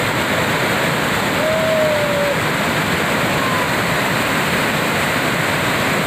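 Waterfall: water pouring over a rock ledge and churning white over the rocks below, a steady heavy rush. A short whistle-like note sounds about a second and a half in.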